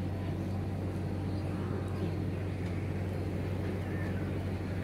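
Steady low outdoor background hum with no distinct events.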